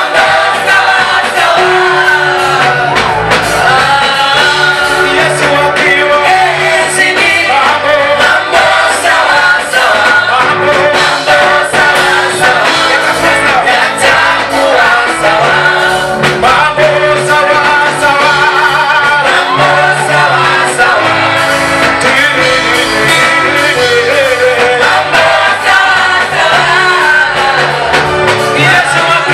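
Live gospel praise music: a group of singers over a band, with sustained bass notes and a beat, loud and continuous.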